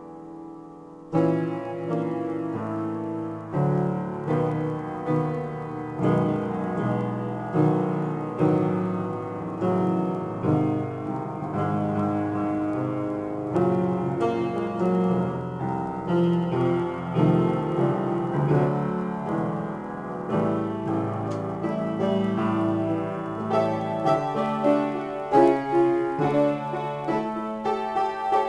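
Piano played in a solo improvisation: a held chord dies away, then about a second in a loud chord is struck and busy, dense playing follows, with many notes stacked over a low bass.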